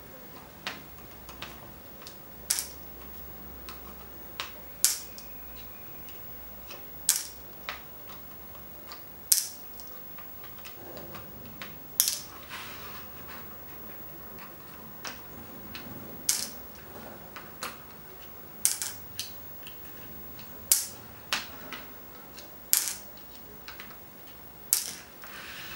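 Black plastic pegs of a peg solitaire game clicking against its green plastic boards as pegs are jumped, lifted out and the captured ones dropped onto the second board: a sharp click about every two seconds, with softer taps between.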